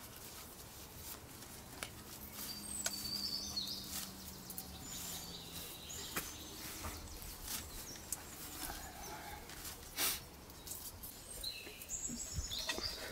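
Quiet outdoor ambience with scattered bird chirps, a few high calls about three seconds in and again near the end. Many small clicks and rustles come from hands sorting cherries and handling herbs.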